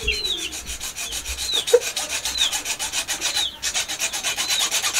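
Hacksaw blade sawing through a rooster's spur in fast, even back-and-forth strokes, a rasping rub on each pass, with a brief pause about three and a half seconds in.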